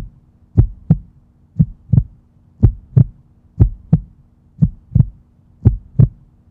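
Heartbeat sound, a steady double beat (lub-dub) repeating about once a second, over a faint steady low hum.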